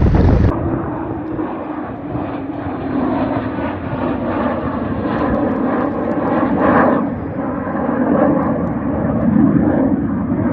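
Honda CRF250M's single-cylinder four-stroke engine running under way, a steady drone that swells louder briefly around the middle.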